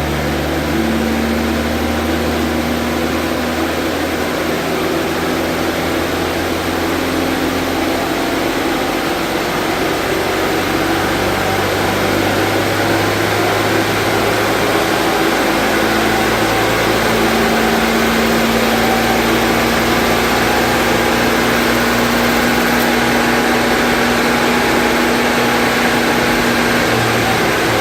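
Mk1 Vauxhall Cavalier's four-cylinder engine running steadily under load on a rolling road, its pitch shifting a few times and the level rising a little about halfway through.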